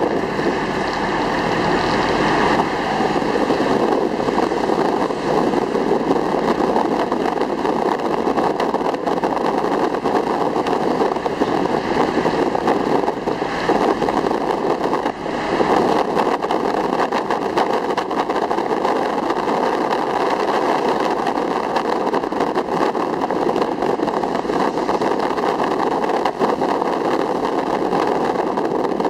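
Steady engine and road noise heard from aboard a moving jeepney, its diesel engine running at an even cruising pace.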